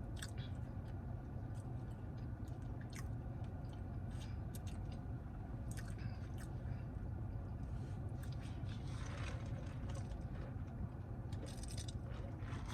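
A person chewing and biting fast food close to the microphone, with scattered short mouth clicks over a steady low hum.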